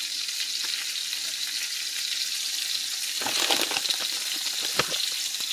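Diced potatoes sizzling in butter and oil in a stainless steel skillet, a steady frying hiss. A few light rattles and a sharp knock come about three to five seconds in.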